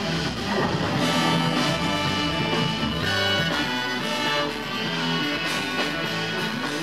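Live jazz-fusion band playing: a trumpet and saxophone horn line over electric guitars, keyboard, bass guitar and drums, with notes held for a second or more.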